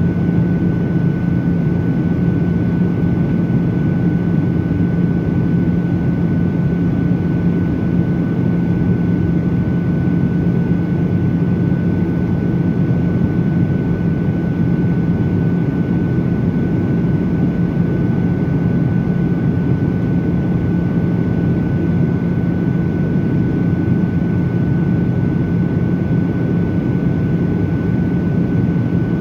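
Steady cabin noise of a Boeing 737-800 in flight, heard from a window seat over the wing: the rush of airflow and the hum of its CFM56-7B turbofan engines, a low drone with a faint steady whistle above it, unchanging throughout.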